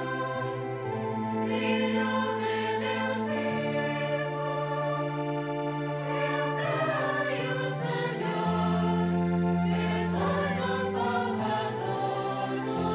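Church choir singing a hymn during the distribution of communion, with long held low notes underneath that change in steps.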